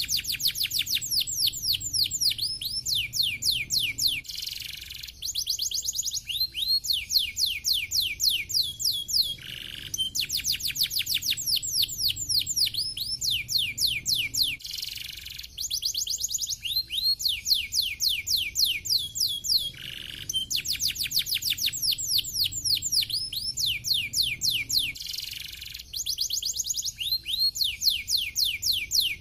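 Domestic canary singing a fast, tightly packed song: long runs of rapid trills made of quick, repeated downward-sweeping high notes, broken by short pauses every few seconds.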